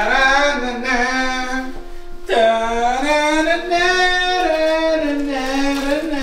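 A song with sung vocals and long held notes; a new phrase starts about two seconds in.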